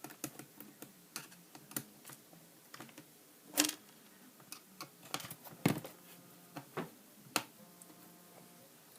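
Irregular small clicks and taps of a screwdriver working the small screws of a laptop's LCD frame, with a few louder knocks about three and a half seconds in, near the middle, and near the end.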